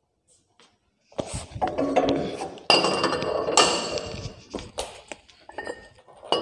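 Metal barbell weight plates clanking and clinking against a steel bar as they are handled and slid on, starting about a second in. Several sharp hits ring on briefly.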